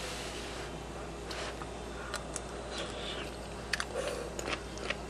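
A person eating a spoonful of chili close to the microphone: wet mouth clicks and chewing, sparse at first and coming thicker in the last second or so, over a steady low hiss.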